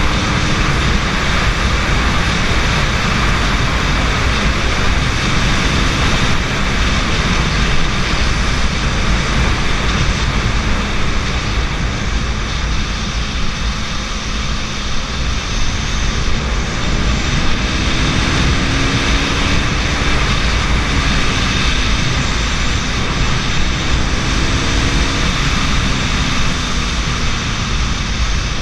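KTM RC 200's single-cylinder engine running at road speed, buried under heavy wind rush. The engine pitch rises and drops back a few times.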